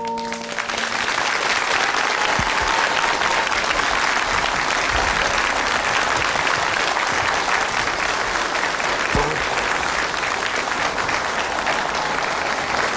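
Studio audience applauding, a steady clatter of many hands, as the band's last notes die away in the first second.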